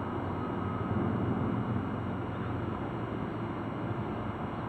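Steady low-pitched background rumble, with no distinct motor or event sound standing out.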